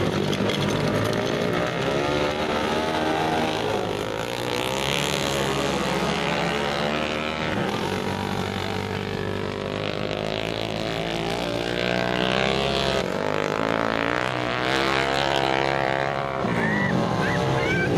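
Several dirt-track racing motorcycle engines running hard and revving up and down as the bikes lap the dirt oval, their pitch rising and falling as they pass and fade.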